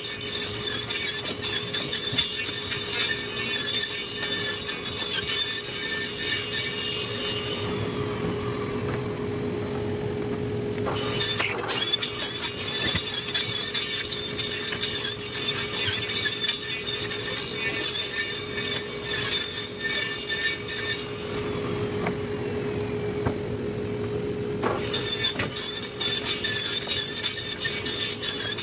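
Table saw running with a steady blade whine as it cuts wooden boards into small pieces in quick succession, with frequent clicks and knocks of wood and offcuts against the saw table.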